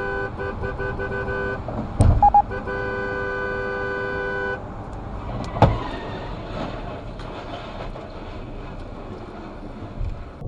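A car horn held in a long steady blast, broken off about two seconds in by a sharp knock and a few short beeps, then sounding again until about halfway through. A loud bang comes a little later as the truck ahead crashes, followed by road and tyre noise heard from inside the car.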